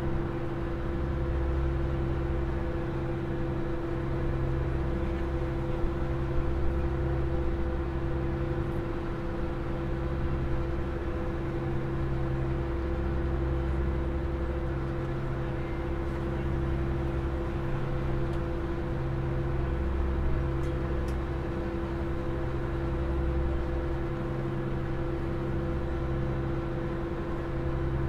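Open car ferry's diesel engines running steadily under way: a constant droning hum with a low rumble that swells and fades every few seconds.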